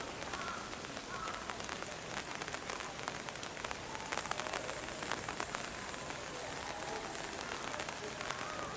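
Steady rain falling on tree leaves, with many scattered sharp drop ticks.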